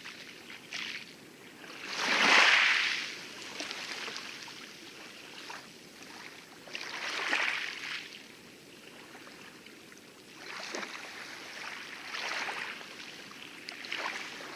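Light waves lapping and washing over coral in the lagoon, in soft swells every few seconds, the loudest about two seconds in, with small trickling ticks of water between them.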